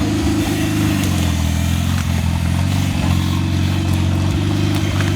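GAZ-69's four-cylinder side-valve engine running steadily while the vehicle drives; the pitch eases slightly about a second in, then holds.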